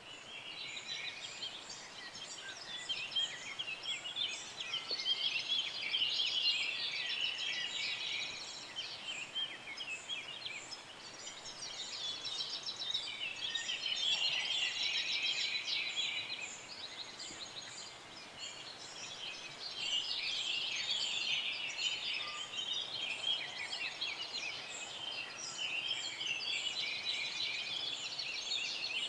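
Dense chorus of many small birds chirping and trilling together, swelling and fading in waves every several seconds.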